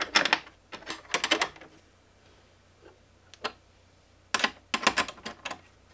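Sharp clicks and clatters in a few separate clusters, the busiest near the end, as an aluminium bar is slid into place and clamped down under hold-down clamps on a desktop CNC machine's bed.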